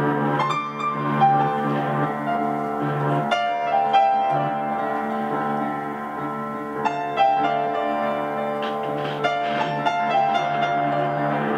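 Upright piano and guitar playing a slow instrumental duet, live. Long held notes ring on, with new notes struck about three seconds in and again around seven seconds in.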